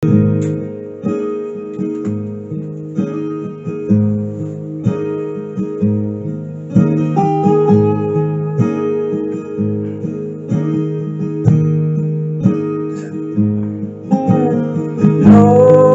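Acoustic guitar intro to a gospel song: chords plucked and strummed in a slow, steady pattern. A singing voice begins gliding in near the end.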